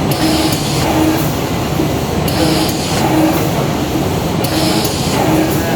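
Zhengrun CB540 production machine running steadily with a regular mechanical cycle: a short hum repeats about once a second, with hissy bursts roughly every two seconds.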